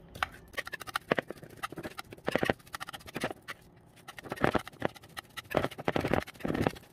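Metal wire whisk mashing boiled potatoes in a bowl: irregular clicks and knocks as the wires strike the bowl, with a few short squishy scrapes through the potato.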